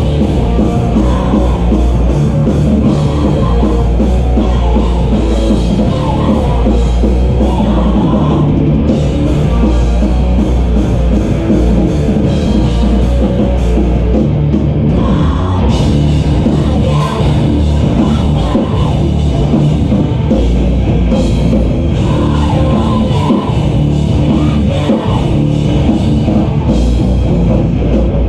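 A loud live rock band playing, with a drum kit and electric guitars, heard from within the crowd in a small room.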